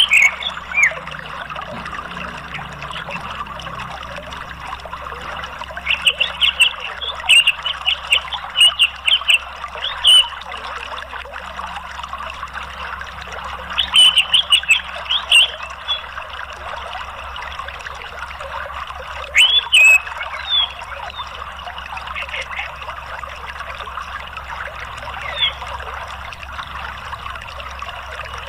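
Steady rush of running water, like a stream or waterfall, with several bursts of quick, high chirping calls over it: a nature-sound therapy track for a caged orange-headed thrush.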